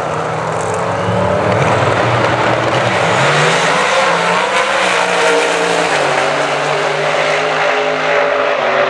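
Two Pro Modified drag cars, a Dodge Viper and a Vauxhall Victor, launching and running at full throttle side by side down the drag strip. The loud engine noise builds about a second in and holds, and the engine pitch rises and dips as they accelerate away.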